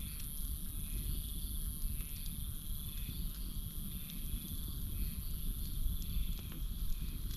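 Wood campfire crackling with scattered sharp pops and a low rumble of burning, over a steady high drone of night insects and an insect chorus that swells about once a second.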